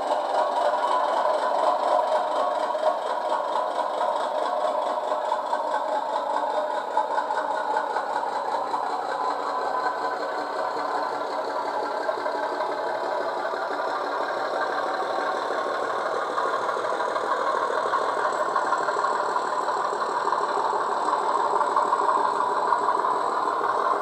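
Sound-decoder recreation of a BR Class 30's Mirrlees diesel engine, built from a Class 37/9 Mirrlees MB275T recording, running steadily through a model locomotive's small speaker, thin in the bass. It grows a little louder in the last few seconds.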